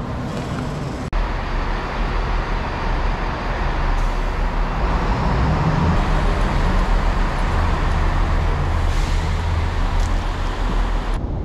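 Steady low rumble and noise of a vehicle in motion, starting abruptly about a second in.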